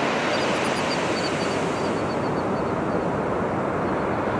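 Steady rushing wash of ocean surf, with faint high chirps scattered through the first three seconds.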